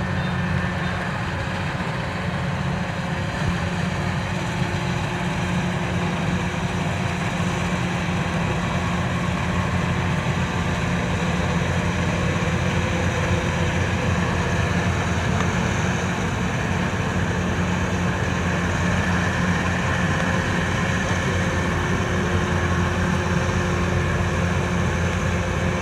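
Kubota DC-93 combine harvester running steadily under load as it cuts rice, its diesel engine and machinery giving an even, unchanging drone.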